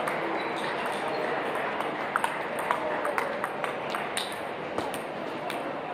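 Table tennis rally: the ball clicking sharply off paddles and table in quick, uneven succession, mostly from about two seconds in. Behind it, the steady murmur of voices and the clicks of other games carry through a large hall.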